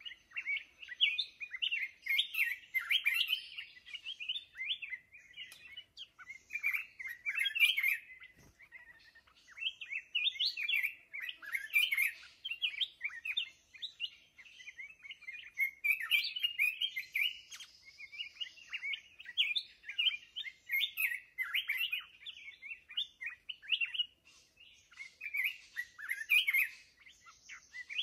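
Bulbul singing: bursts of quick, chirpy warbled phrases repeated again and again, with short pauses between runs.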